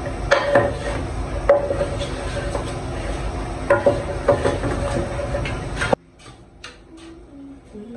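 Wooden spoon stirring in a pot on the stove, knocking against the pot's sides at irregular moments over a steady hum. About six seconds in the sound drops off suddenly, leaving only a few faint clicks.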